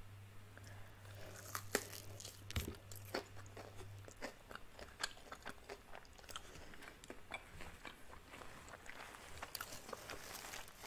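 Crunching bites and chewing of a crispy breaded fried chicken wing, a quick run of sharp crackling crunches. A low steady hum stops about four seconds in.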